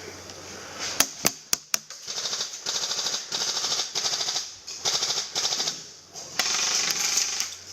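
Electric airsoft gun firing: a few sharp single cracks about a second in, then several rapid full-auto bursts, the longest near the end.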